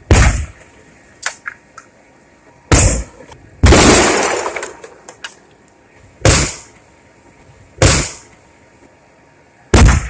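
Explosions of a washing machine packed with gasoline, spray paint cans and sterno: about six loud blasts one to two seconds apart, the one a bit under four seconds in dying away longest, with small sharp cracks between them.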